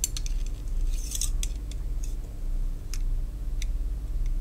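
Steel vernier caliper being slid and set against a knife: light metallic clicks and scrapes, a quick cluster near the start and again about a second in, then single ticks every second or so. A steady low hum runs underneath.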